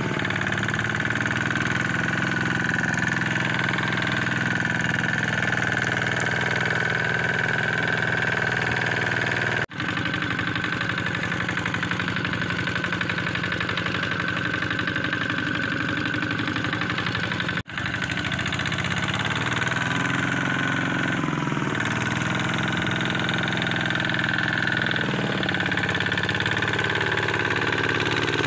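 Single-cylinder Kubota ZT155 diesel of a two-wheel walking tractor running steadily at a constant speed while it pulls a loaded rice trailer through mud. The sound drops out for an instant twice, about ten and eighteen seconds in.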